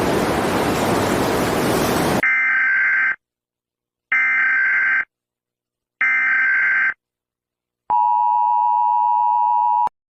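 Emergency Alert System (EAS) tones: a hiss of static cuts off about two seconds in. Three short warbling digital data bursts of about a second each follow, with pauses between them, then the steady two-tone EAS attention signal held for about two seconds.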